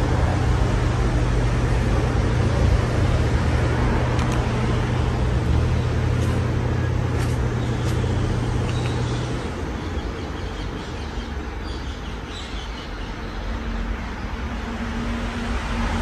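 Casablanca Spirit of Saturn ceiling fan running: a steady rush of moving air with a low, steady motor hum that drops away about nine seconds in.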